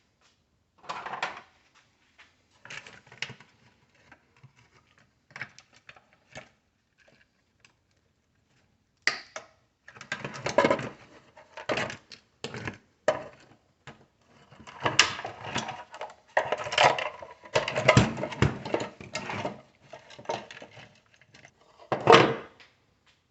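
Irregular clicks, knocks and clatter of tools and small hard parts as an electronic power supply unit is taken apart by hand. The clatter comes in short bunches and gets busier and louder in the second half, with one loud knock near the end.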